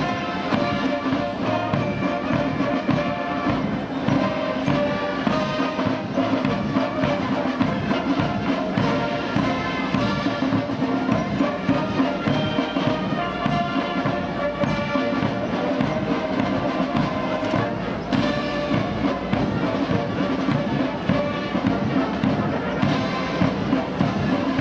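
Military brass band playing, with trumpets and other brass over a beat.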